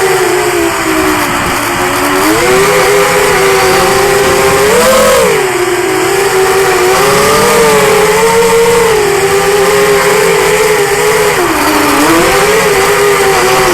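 Racing quadcopter's four 2204 2300Kv brushless motors and propellers whining, as heard from the Mobius action camera mounted on the drone. The pitch keeps swelling and dipping with the throttle, with a sharp rise about five seconds in.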